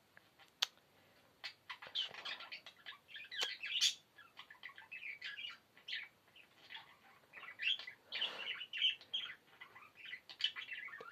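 Budgerigars chattering in their cage: fast, busy chirps and warbles, with a sharp click about half a second in, the chatter setting in after a second and a half.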